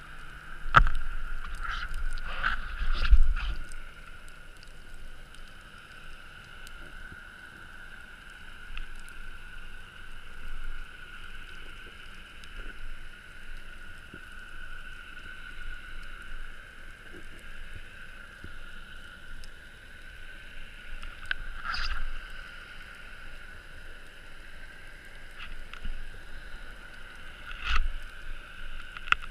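Underwater ambience heard through a camera's waterproof housing during a freedive: a steady hiss with occasional knocks and thumps, several in the first few seconds and a couple more later on.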